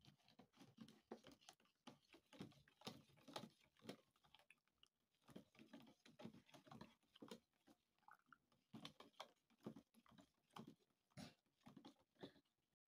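Faint, irregular scraping and clicking of a metal teaspoon stirring cocoa powder into a drink in a plastic yogurt cup, knocking against the cup's sides.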